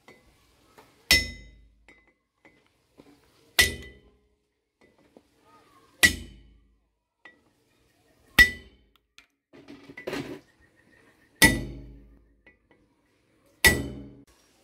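Bearing cones being hammered into place in an excavator's swing reduction gearbox: six sharp metal-on-metal strikes, about two to two and a half seconds apart, each ringing briefly.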